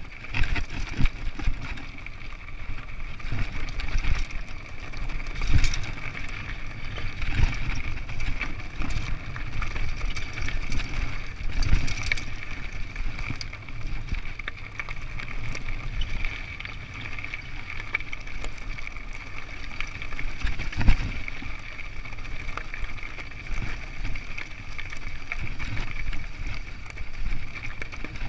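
Mountain bike rolling fast down a rocky dirt trail: tyres crunching over loose stones and the bike rattling, with sharp knocks as it jolts over rocks, and a steady high buzz.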